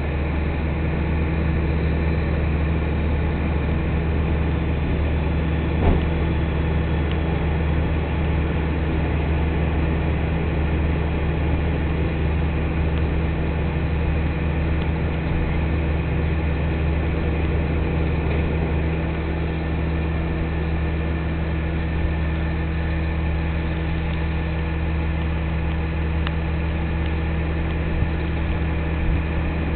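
Rear-loader garbage truck's diesel engine idling steadily, with a low, even hum, and one faint knock about six seconds in.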